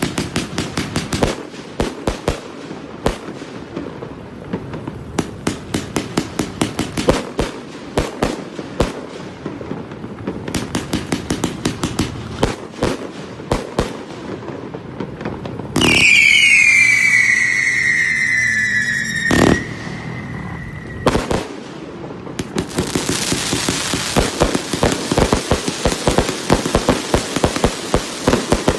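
A 138-shot, 1.2-inch consumer fireworks cake firing: fast runs of sharp reports, several a second. Around the middle a loud whistle falls in pitch for about three seconds, and near the end the shots run together into a dense crackle.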